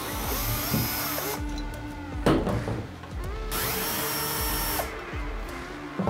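Cordless power drill backing out screws from the bag's plastic back plate, running twice for about a second each, with a sharp knock between the two runs.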